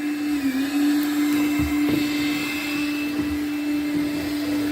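Makita 18-volt cordless vacuum running steadily with an even motor whine that dips briefly in pitch about half a second in.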